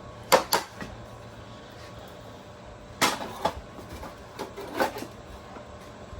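Several sharp knocks and clunks of loose bricks, blocks and metal wheel spacers shifting and clattering on a weighted pulling sled as it is handled on a scale: two close together near the start, then a scattered cluster in the second half.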